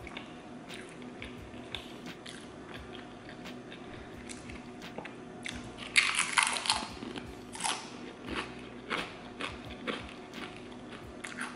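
Quiet chewing, then about halfway through a loud, crunchy bite into a tortilla chip, followed by repeated crunching as the chip is chewed.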